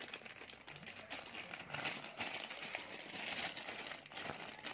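Clear plastic packaging bag rustling in the hands as a flexible tripod is handled inside it, a dense run of small irregular crackles.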